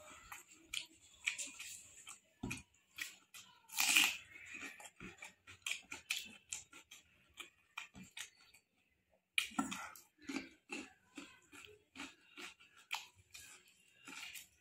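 Close-up chewing and wet mouth smacks of a person eating rice and fried pork by hand, with squelching as fingers mix the rice. The clicks and smacks are irregular, with one louder burst about four seconds in and a brief lull just before the end of the second third.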